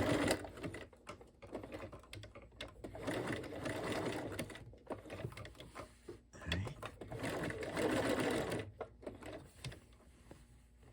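Bernina 1130 sewing machine stitching a decorative stitch in short runs, stopping and starting again several times.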